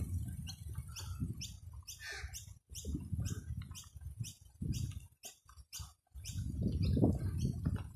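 Birds chirping: many short high calls, several a second, over a low rumble of wind and movement that grows louder near the end.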